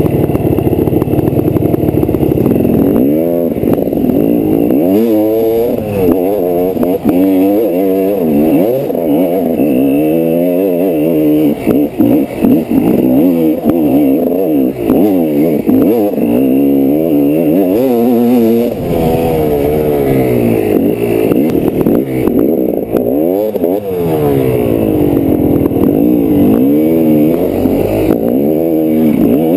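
GasGas 300 EC's 300 cc single-cylinder two-stroke engine being ridden hard off-road, its pitch climbing and dropping again and again with throttle and gear changes.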